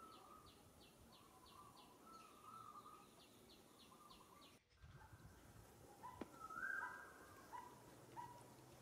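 Faint outdoor ambience with birds chirping. Short calls repeat about twice a second, and a quick, faint ticking runs beneath them in the first half.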